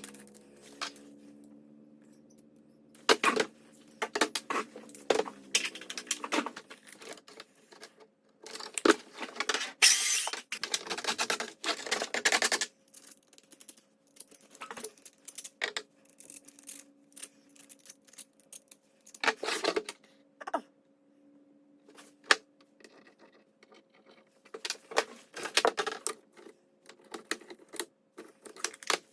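Small hard parts being handled: irregular clicks, clacks and rattles, with a denser scraping, rasping stretch about ten seconds in, over a faint steady hum.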